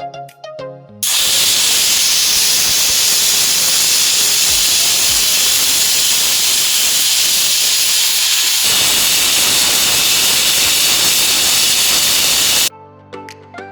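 Steady hiss of escaping steam, loud; it cuts in suddenly about a second in, shifts slightly about two-thirds of the way through, and stops suddenly near the end.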